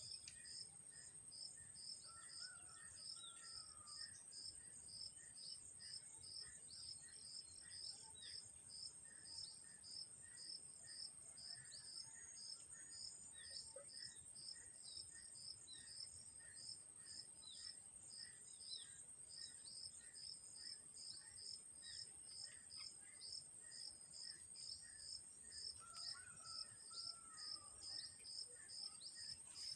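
Faint insects calling: a steady high-pitched trill under a regular chirp repeating about three times a second, with a few short bird calls scattered through.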